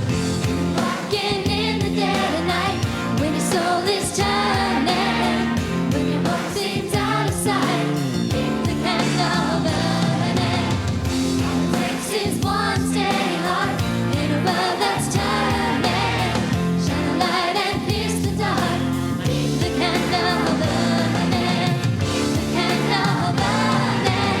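Choir singing a pop-style Christian song over accompaniment with a steady beat.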